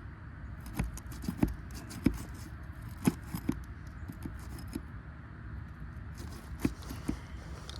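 Sharp clicks and knocks of a metal roof snake prying and tapping under asphalt shingles to break the seals and reach the nails, about seven irregular strikes over a low steady rumble.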